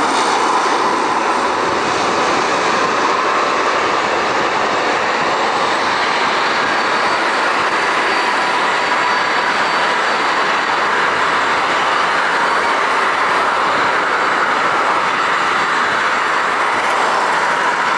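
Aircraft engines running loud and steady, an even rushing noise with a faint steady whine on top.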